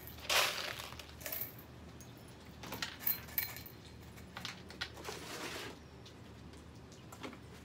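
Small pebbles poured into a round glass bowl, rattling and clinking against the glass in several short bursts.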